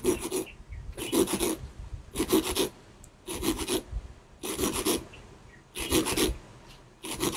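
Hand sharpening of a 1.5 mm steel-wire eel-hook point against a flat abrasive grinding stone. Seven rasping strokes come about one every second, each pushing the point flat along the stone to grind a taper.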